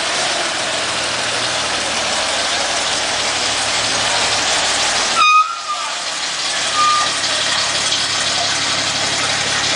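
Antique fire engine's engine running as it pulls slowly away, under heavy wind noise on the microphone. The sound drops out briefly about five seconds in.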